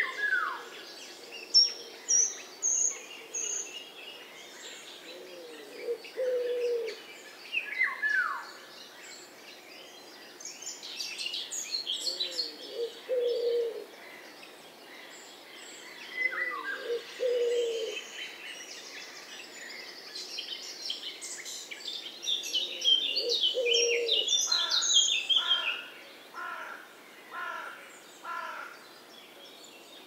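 Garden birdsong: small birds chirping and giving falling whistles, while a pigeon's low cooing phrase repeats about four times. Near the end one bird gives a quick run of six or seven evenly spaced notes.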